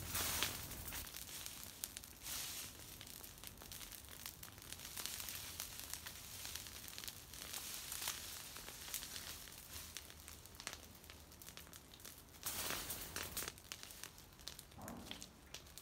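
A pile of dry brush and branches burning with irregular crackling, while dry branches are rustled and pushed into the fire, with louder bursts of rustling near the start and again a few seconds before the end.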